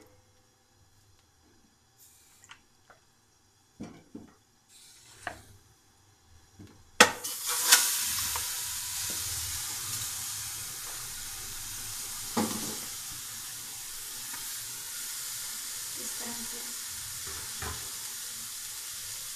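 Raw beef trotters being dropped into an aluminium cooking pot: a few faint clicks, then after about seven seconds a steady hiss with occasional knocks of bone and meat against the pot.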